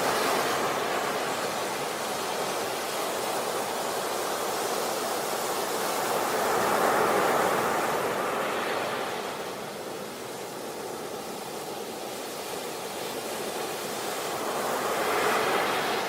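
Sea waves breaking on a beach: a continuous rushing wash that swells and eases in slow surges, building about seven seconds in and again near the end.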